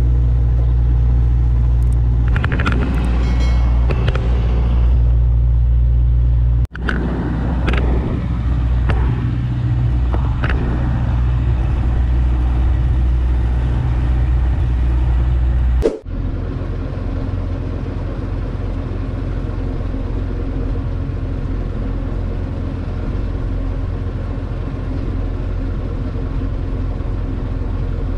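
Fishing boat's engine running with a steady low drone, heard from on board. It breaks off abruptly twice, and after the second break the drone continues quieter.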